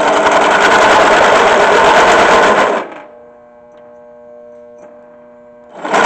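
Two bursts of loud, rapid, rattling metalworking noise. The first stops abruptly about three seconds in and the second starts abruptly near the end, with a faint steady machine hum between them.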